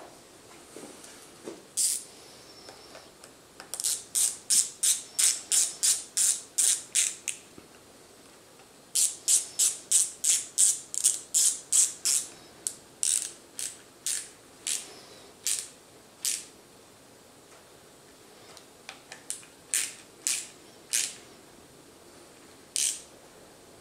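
Ratcheting screwdriver clicking in quick runs of about four clicks a second, then slower, scattered clicks near the end, as the screws of a clutch master-cylinder reservoir cap are driven in.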